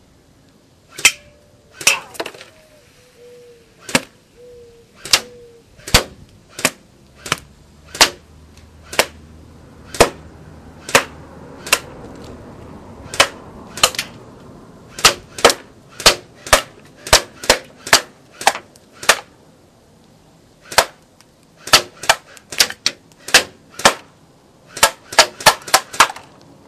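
Cybergun M1A1 Thompson airsoft electric gun (AEG) firing shot by shot: several dozen sharp cracks, mostly half a second to a second apart, coming in quicker strings toward the end.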